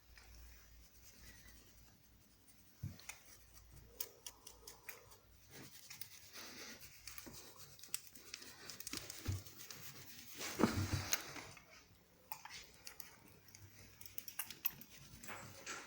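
Plastic monster-claw grabber toy clicking and scraping in short irregular bursts, with rustling between them; the loudest scrape comes about ten seconds in.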